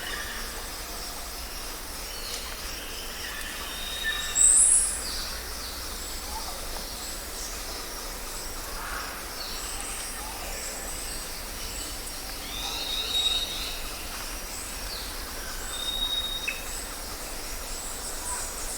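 Forest ambience: assorted songbirds chirping and whistling in short calls over a steady background hiss and low rumble, with one louder high-pitched call about four and a half seconds in.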